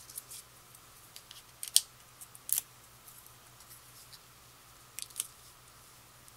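Quiet paper handling: a few short, crisp rustles and clicks of small die-cut cardstock pine cones being picked up, positioned and pressed onto a card. The loudest comes about two seconds in, with a pair about five seconds in.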